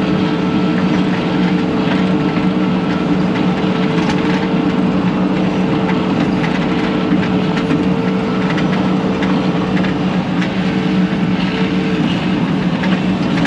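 Bobcat T630 compact track loader's diesel engine running steadily under working load, with a constant whine and a faint clatter from the tracks.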